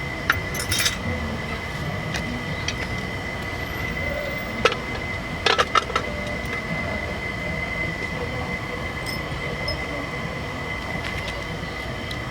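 A few short, sharp metallic clicks and clinks: a couple about a second in, one near the middle, then a quick cluster just after. They sound over a steady background hum with a constant high whine.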